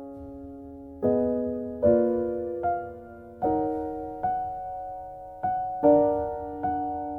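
Background piano music: a gentle, slow piece of chords struck roughly once a second, each left to ring and fade.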